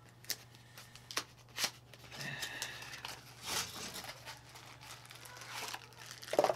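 Small cardboard box being opened by hand: a few sharp clicks and taps of the flaps, then rustling of cardboard and crinkling of the plastic wrap around the charger, with a louder rustle near the end.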